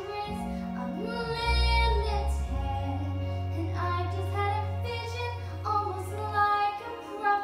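Young female singer performing a musical-theatre song through a headset microphone, her voice gliding between held notes over an instrumental accompaniment with long, sustained low bass notes.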